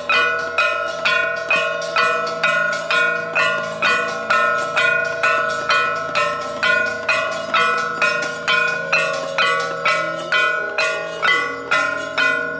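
Hanging metal gongs struck with mallets in a steady beat, about two strikes a second, each stroke ringing on into the next.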